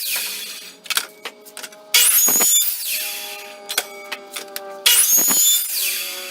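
Background music: a loud hit with a falling high sweep about every three seconds, with held tones and sharp clicks between.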